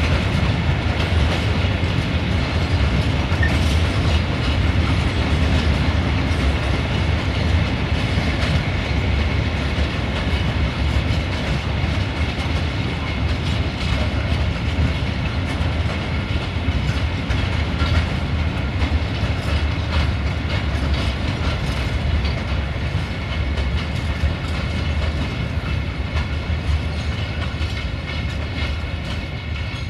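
Freight train of hopper wagons rolling past, a steady rumble of wheels on rail with repeated clacks as the wheels cross rail joints, fading slightly near the end.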